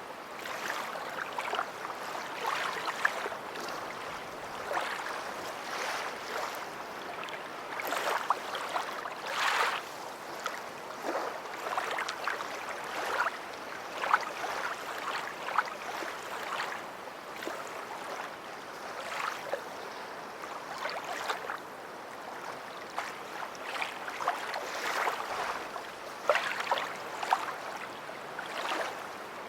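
Small sea waves lapping and splashing at the shore: a steady wash of water broken by many short, irregular splashes.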